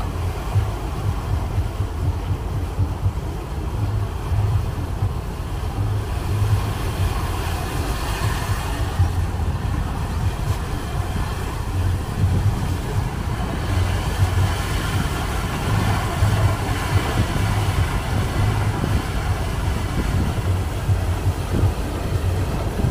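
A river passenger boat's engine running steadily under way: a low, unevenly pulsing drone with a steady hiss over it.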